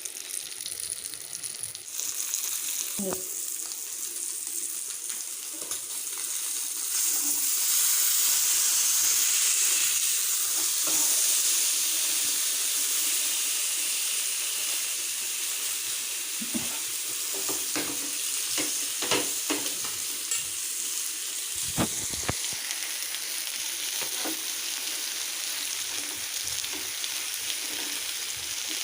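Butter-and-masala-coated whole fish sizzling in a little oil on a dosa griddle over a low flame, the butter cooking out of it. The sizzle swells about seven seconds in and eases off again, with a few short knocks scattered through.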